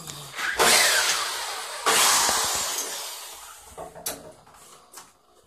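Cordless drill running in two long bursts, backing screws out of a wooden bed frame; the second burst trails off gradually, followed by a couple of short clicks.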